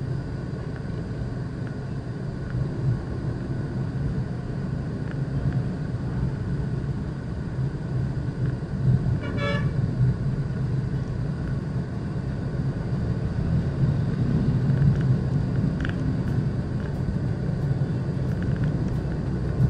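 Steady low rumble of engine and road noise from inside a car moving in city traffic, with a short vehicle horn toot about halfway through.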